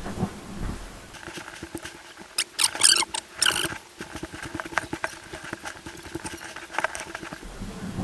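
Footsteps crunching and rustling through dry undergrowth on a trek, irregular and loudest in a cluster of crunches about three seconds in.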